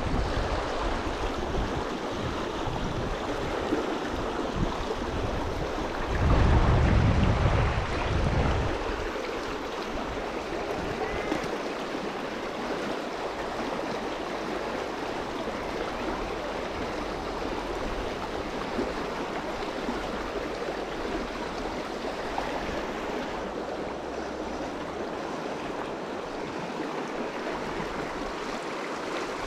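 Small mountain creek running over rocks: a steady rush of flowing water. In the first eight seconds or so, low buffeting on the microphone rises over it, loudest a little past six seconds in.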